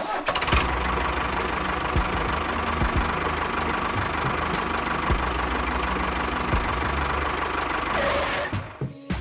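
A small motor running steadily with a faint whine, cutting off shortly before the end.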